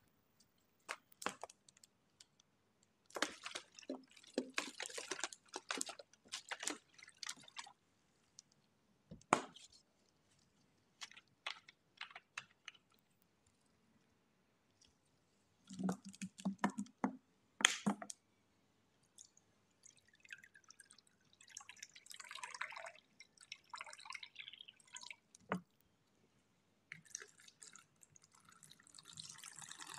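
Clear plastic food container and glass mug handled with gloved hands: scattered light clicks and taps, a few knocks, then water poured from the glass mug into the plastic container in splashy spells over the last third.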